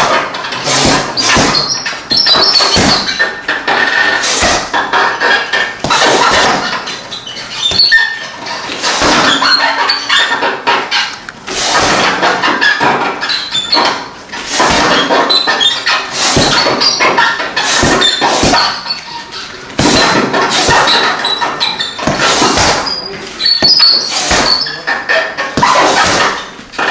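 Punches and a barefoot kick landing on a hanging heavy punching bag: a rapid, irregular series of thuds in short combinations.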